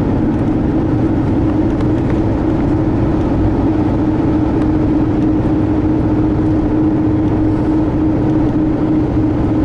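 Car driving steadily at road speed, heard from inside the cabin: a continuous drone of engine and tyre noise with a constant low hum.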